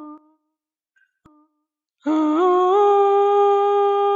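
A solo voice sings long held notes that slide slowly in small steps up and down in pitch. The note breaks off just after the start, leaving a short silence with one faint click, and a new long note begins about two seconds in.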